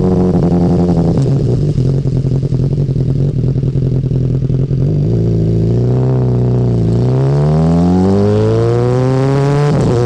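BMW S1000R's inline-four engine through its stock Akrapovic exhaust while riding: a rough, crackling note for the first few seconds, then the revs fall and climb again as the bike accelerates, with a gear change near the end.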